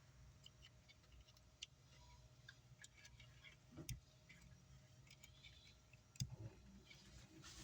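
Near silence with a few faint, scattered clicks and taps from small parts being handled on a workbench.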